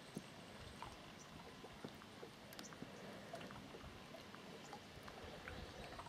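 Faint lapping of water close to the surface, with scattered small clicks and ticks.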